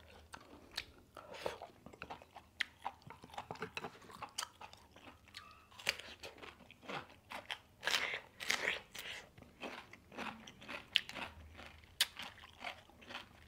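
A person eating: crisp crunching and chewing, with bites into raw cucumber, as a run of irregular crackles and clicks that is busiest past the middle.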